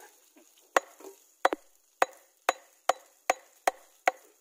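Steady chopping with a knife, sharp evenly paced strokes about two to three a second, starting just under a second in.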